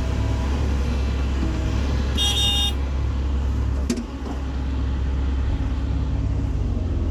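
Diesel engine of heavy earthmoving machinery running steadily, with a short high-pitched toot a little over two seconds in and a sharp knock about four seconds in.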